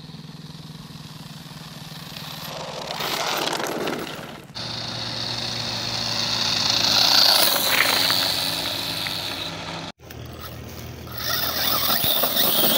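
Brushless-motor RC monster truck running on a 3S LiPo, its motor whine and tyre noise swelling to a peak about seven seconds in as it drives on asphalt, then churning over gravel and dry leaves. The sound breaks off abruptly twice at cuts between clips.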